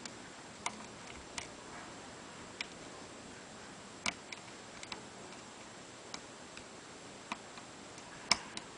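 Sparse, irregular small metallic clicks of a lock pick working the pins of a Mul-T-Lock Interactive telescoping-pin lock held under tension, with a louder click about eight seconds in.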